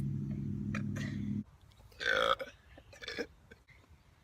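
A teenage girl's long, low burp, ending abruptly about a second and a half in. About two seconds in comes a short, higher-pitched vocal sound.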